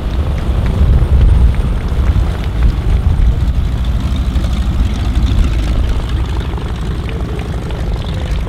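North American SNJ-3 (Harvard/Texan) trainer's nine-cylinder Pratt & Whitney R-1340 radial engine running at low taxi power with its propeller turning, a loud, steady, pulsing drone that eases off a little near the end.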